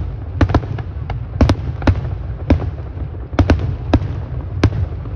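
Firework mortar shells going off in quick, irregular succession: about ten sharp bangs, several in close pairs, over a steady low rumble.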